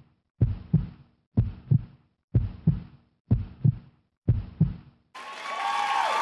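Heartbeat sound effect: a low double thump, lub-dub, about once a second, five times. About five seconds in, a rising rush of noise swells in.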